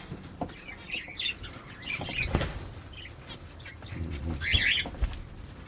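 Pet cockatiels and finches chirping in short bursts, with wing fluttering and a few sharp taps; the loudest chirping comes about four and a half seconds in.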